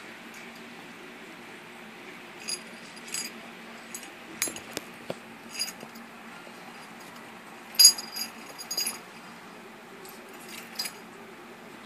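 Metal dog-collar rings and tags jingling in scattered short clinking bursts as a German Shepherd and a Pomeranian play-wrestle; the loudest jingle comes a little under eight seconds in.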